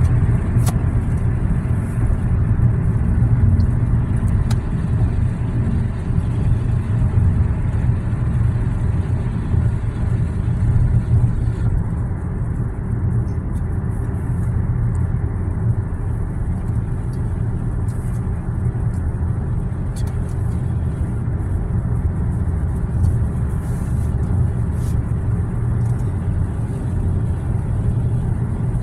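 Steady cabin noise of a car cruising at highway speed on a wet road: a low, even rumble of tyres and engine, with a few faint ticks scattered through it.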